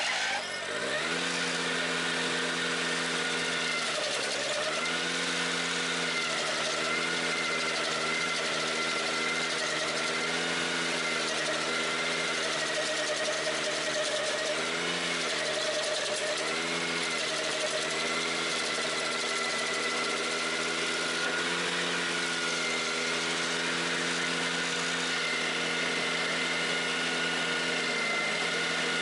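Ventrac 4520Z tractor driving its KC180 stump grinder, the cutter wheel chewing into a stump. The engine runs steadily under a high whine, and its pitch sags briefly and recovers several times as the cutter takes bites under load.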